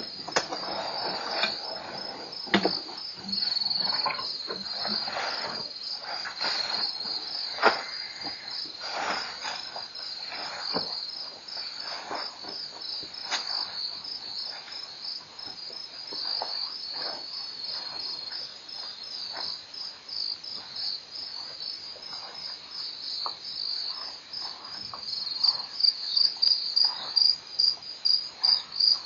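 Crickets chirping in a steady high trill, over irregular rustles and cracks. Near the end the chirping comes louder, in pulses about twice a second.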